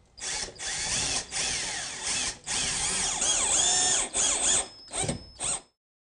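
Cordless drill/driver driving screws through a base cabinet's back into the wall studs, in a run of bursts with the motor's whine rising and falling as it speeds up and slows under load. The last few bursts are short pulses as the screws seat, then the sound cuts off suddenly.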